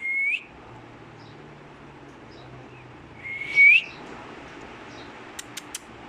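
Black-capped lory whistling twice: each whistle is a short held note that sweeps sharply upward at the end, and the second is louder. Three quick sharp clicks follow near the end.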